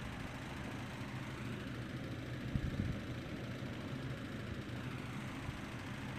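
A steady low hum of running machinery, with a few low thumps about two and a half seconds in.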